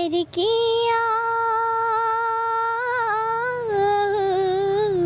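A girl singing a Nepali song solo into a handheld microphone. She holds one long note for about three seconds, turns it briefly, then drops to a lower held note near the end.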